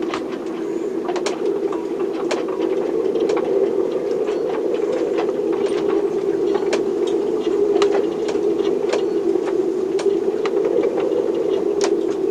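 Storm noise inside a sailboat's cabin: a steady hum that swells slightly about ten seconds in, with sharp clicks and knocks from the boat scattered irregularly over it, about one or two a second.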